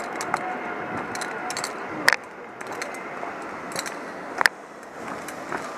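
Zip line trolley running along the steel cable: a steady rushing hiss with small ticks and two sharp clicks, about two and a half seconds apart.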